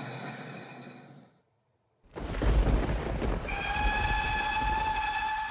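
Music fades out into a brief silence, then a train rumbles in and sounds its horn, one steady note held for about two and a half seconds.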